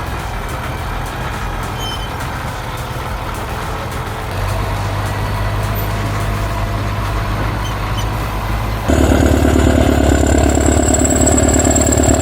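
Caterpillar D6D bulldozer's diesel engine running steadily. It grows louder about four seconds in, then rises abruptly near the end with a high, steady whine over the engine.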